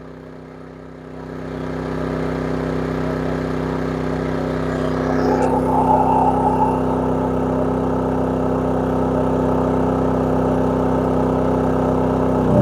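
Westinghouse WH3700iXLTc inverter generator running under heavy load as a second RV air conditioner starts up. The combined machine sound swells about a second in, then holds steady.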